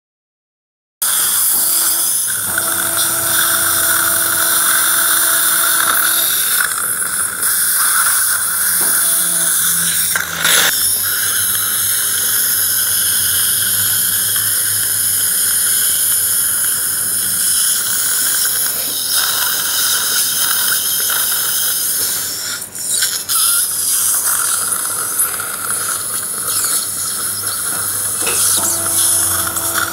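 Implant surgical motor and contra-angle handpiece drilling an implant site in the jawbone, a loud, steady high-pitched whine that starts about a second in and dips briefly a few times.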